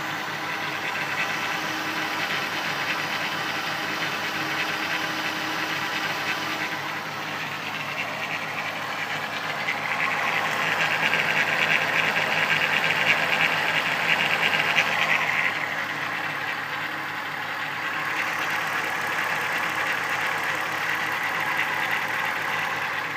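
1994 VW Golf VR6 narrow-angle V6 engine running with a fast metallic rattle from its timing chain, the sign of a worn chain. The rattle grows louder and brighter for about five seconds in the middle, then settles back.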